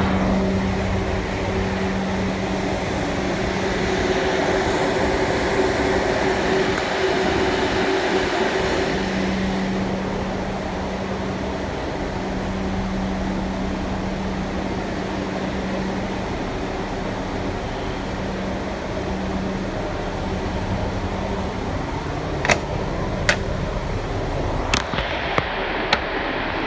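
Inside a moving New York City Subway 1-train car: steady running noise with an air-conditioning hum and a steady low tone. A few sharp clicks near the end as the train comes into a station.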